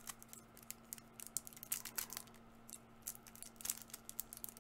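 Faint, irregular small clicks and crinkles of fingers picking at and peeling the tape on a small taped package, trying to get it open.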